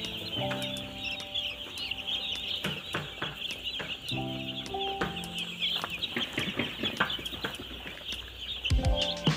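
A large flock of broiler chicks peeping all at once, a dense, continuous chorus of high chirps. Held low notes of background music play underneath.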